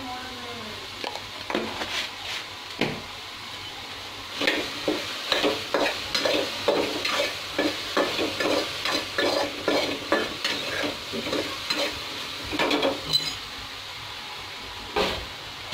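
Soaked soya chunks sizzling in a little oil in a non-stick kadhai while a spatula stirs them, scraping against the pan in quick repeated strokes, busiest through the middle.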